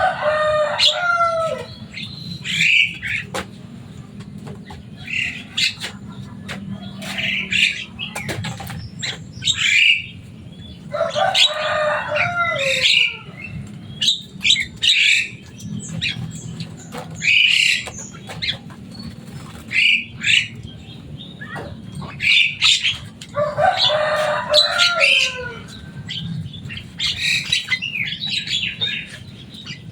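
Javan myna (jalak kebo) calling over and over: short sharp chattering notes, with a longer, busier call ending in falling notes at the start, about eleven seconds in, and again about twenty-three seconds in. A steady low hum runs underneath.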